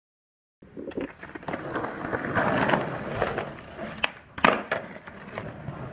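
Silence for about half a second, then skateboard wheels rolling over rough concrete, rattling with many small clicks. Two sharp clacks of the board striking the ground come a little after the middle, the second the loudest.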